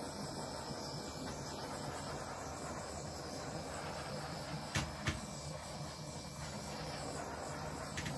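Handheld butane torch hissing steadily as it is swept over wet epoxy resin, with two sharp clicks about five seconds in and another near the end.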